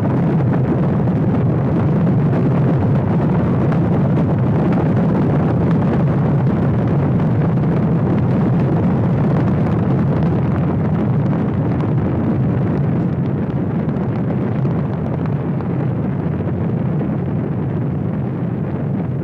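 Saturn V rocket's five F-1 engines at liftoff: a loud, continuous deep rumble of rocket exhaust, growing slightly fainter and duller over the last several seconds as the rocket climbs away.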